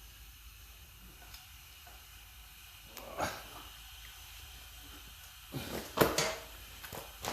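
Compressed air hissing into a 5.7L Vortec V8 cylinder during a leak-down test: short bursts of air about three seconds in and again around six seconds, the second the loudest, over a faint steady hiss.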